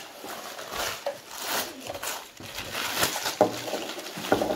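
White tissue paper rustling and crinkling in irregular bursts as it is pulled off a drinking glass being unwrapped.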